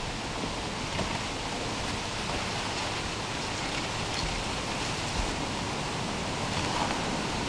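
Steady rush of breeze outdoors, an even noise with no distinct events.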